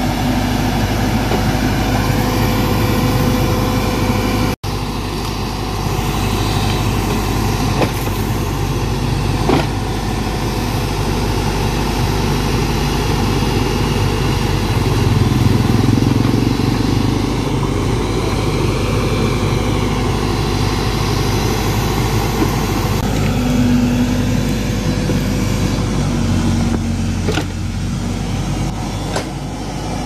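Case backhoe loader's diesel engine running steadily as the backhoe arm digs, swelling louder for a few seconds midway as it works harder. A few short sharp knocks sound over it.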